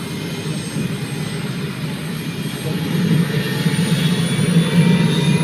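Small piston-engined helicopter running on the ground: a steady engine-and-rotor drone that grows louder about three seconds in.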